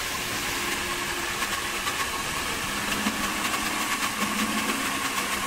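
Chinese-made diamond core drill running steadily with a large steel core bit, drilling into the concrete wall of the tank: a steady motor hum with a fairly loud even hiss.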